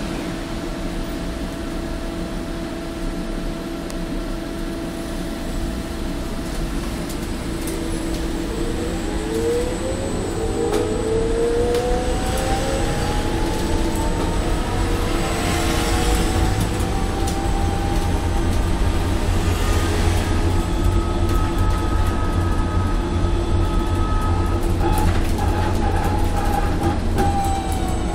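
Inside a shuttle minibus: a steady hum and low rumble while it stands at a red light, then a drive whine that rises in pitch as the bus pulls away and gathers speed about eight seconds in, falling again as it slows near the end.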